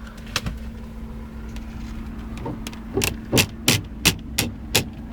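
Car engine idling with a steady low hum. From about three seconds in, a sharp clicking starts and repeats evenly, about three clicks a second.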